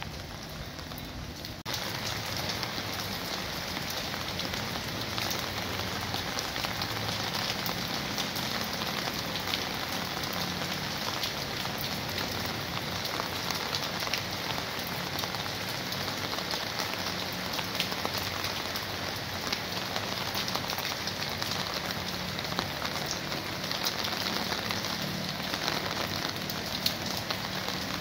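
Steady rain falling: an even hiss dotted with many separate drop ticks. It steps up suddenly in level about two seconds in, then holds steady.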